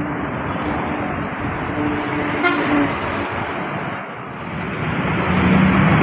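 Road traffic with a vehicle horn held on one steady tone through the first three seconds. A coach's engine then grows louder as it approaches near the end.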